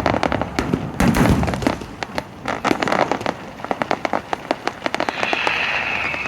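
Fireworks going off: a deep bang about a second in, then a run of rapid sharp crackling pops, and a steady hiss that starts near the end.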